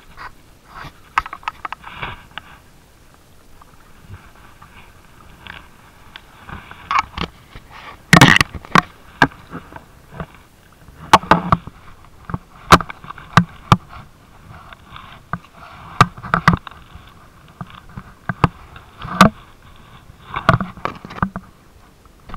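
Irregular clicks, knocks and scrapes of fishing gear and clothing being handled close to the microphone, over a faint steady rush of river water.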